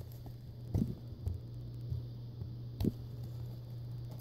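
A few soft taps and knocks from cardstock being handled as a tight pull-out mat is worked at in its paper pocket, over a steady low hum.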